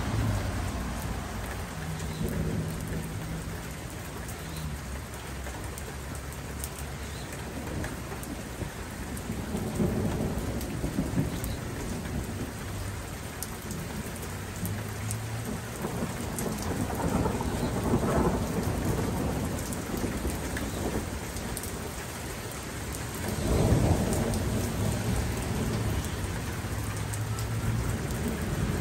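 Steady rain falling with scattered drops tapping, while thunder rumbles swell and fade several times, the loudest roll about three-quarters of the way through.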